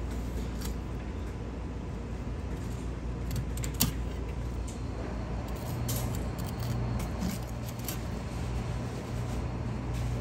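Kitchen knife filleting a mackerel on a plastic cutting board: quiet scrapes and a few light clicks as the blade runs along the backbone, with one sharper click a little under four seconds in. A steady low hum of kitchen machinery runs underneath.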